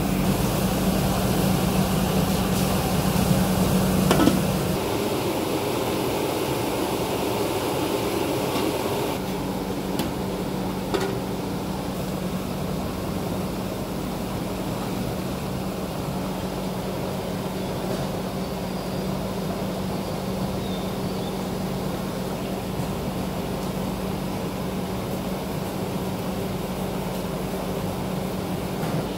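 Steady running noise of a commercial kitchen's stove and ventilation, with a low hum that drops out for a few seconds about five seconds in. There is a knock about four seconds in and a lighter one about eleven seconds in.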